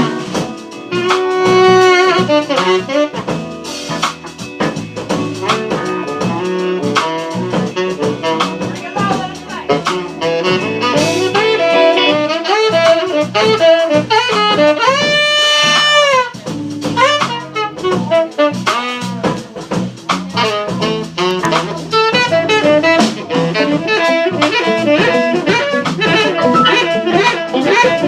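Live jazz band with a saxophone solo over a drum kit, the sax playing a running melody with a long bent note about halfway through.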